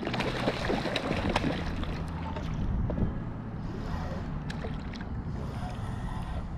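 A hooked fish splashing at the water's surface, with wind buffeting the microphone. The splashing is busiest in the first couple of seconds and thins out after that.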